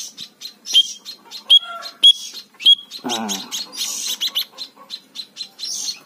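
Young munia chirping in quick, high notes, with a few sharper whistle-like calls and a short lower call about three seconds in: the begging calls of a hand-fed bird as it is called to the hand for syringe feeding.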